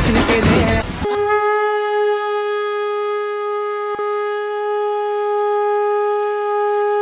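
Dance-song music that breaks off about a second in into one long wind-instrument note, held at a steady pitch for about six seconds. A faint click comes partway through.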